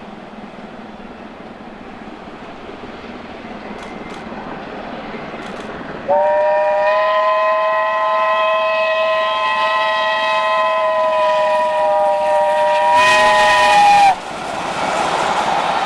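BR Standard Class 7 'Britannia' steam locomotive approaching, its train noise slowly growing louder. About six seconds in it sounds a long, loud whistle for around eight seconds. The whistle cuts off suddenly and the rushing noise of the train going past follows.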